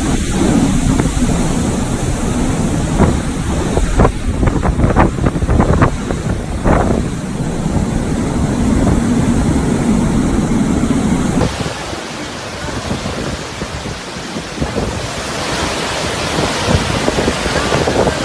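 Hurricane-force wind buffeting the microphone in heavy gusts, with a deep rumble. About eleven seconds in the sound cuts to a thinner, steadier rush of wind.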